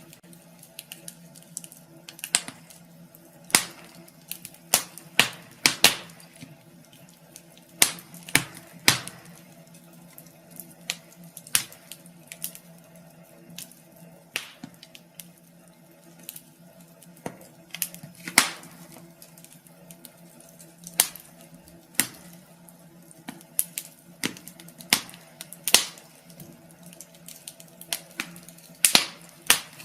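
Wood fire crackling in a fireplace: irregular sharp pops and snaps from the burning logs, one or two a second with short gaps, over a faint steady low hum.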